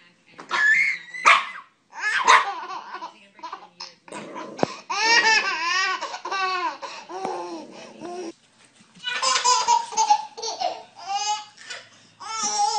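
Baby laughing hard in repeated fits, with a long run of quick, rhythmic bursts of giggling in the middle.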